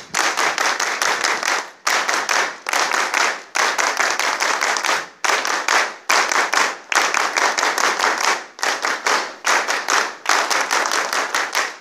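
An audience clapping, many hands together, in loud bursts of rapid claps broken by short pauses about every second and a half to two seconds in a repeating pattern.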